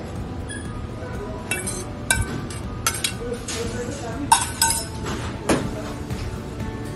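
Metal tongs clinking against a stoneware plate while shredded salad is placed on it: a string of about seven sharp clinks, some ringing briefly.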